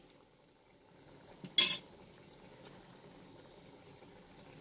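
Moong dal with green peas simmering in an open pressure cooker, a faint steady bubbling. One brief sharp clink about a second and a half in.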